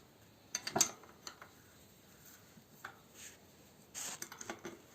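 Scattered metal clicks and clinks from tightening the axle nuts of a bicycle front wheel with a wrench, with a brief scrape about three seconds in and a quick run of clicks near the end.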